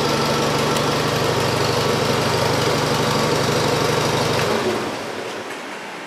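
1979 Farmall 140's four-cylinder gasoline engine running steadily at idle, then shut off about four and a half seconds in and running down to a stop.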